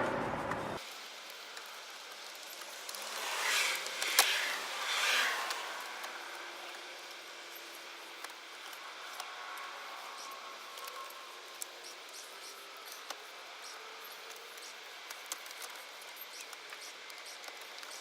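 Plastic interior trim being worked loose by hand: a stretch of rustling and scraping with a sharp click about four seconds in, then scattered small clicks and taps.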